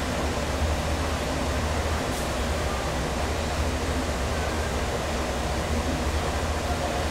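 Steady low machine hum with an even rushing noise over it, unchanging throughout.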